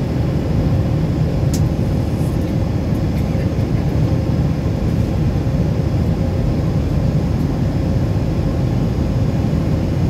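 Steady low drone of a jet airliner's engines and rushing air heard from inside the cabin in flight, with a faint steady hum running through it. A single small click comes about a second and a half in.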